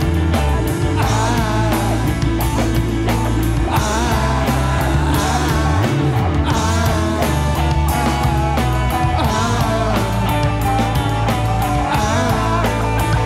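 Rock band playing live: electric guitars, bass guitar and drums in a continuous loud mix.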